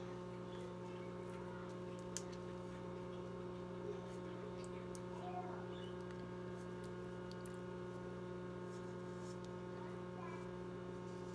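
Steady low electrical hum, with a few faint clicks scattered through it.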